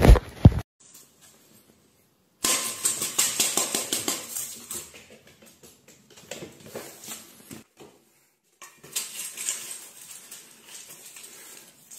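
Dry cat food and treats clattering and clinking in a stainless steel bowl as a kitten paws at it and a hand stirs it: rapid clicks in two spells, the first starting about two seconds in, the second near the end. A brief loud low rumble comes at the very start.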